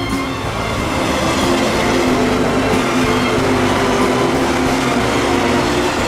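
Recorded sound of a real train running on rails: a steady, loud running noise of wheels on track.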